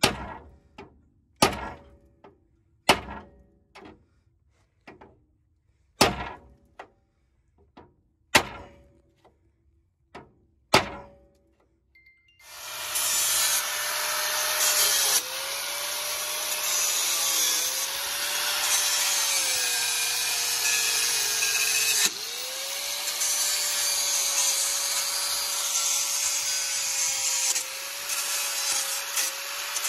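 About nine ringing blows of a big hammer on steel, roughly one every second and a half, driving out a worn-out pressed-in ball joint. About twelve seconds in a pneumatic air hammer starts up and runs continuously on it, its pitch sagging briefly several times under load.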